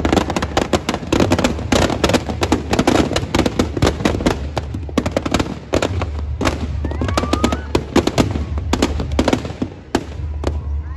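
Firecrackers packed inside a burning Ravana effigy going off in rapid, dense bangs and crackles, many per second, thinning out near the end.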